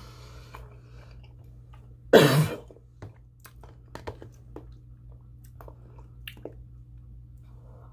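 A woman chewing a mouthful of food, with small mouth clicks, and one loud, short cough about two seconds in, clearing cornbread that went down the wrong pipe.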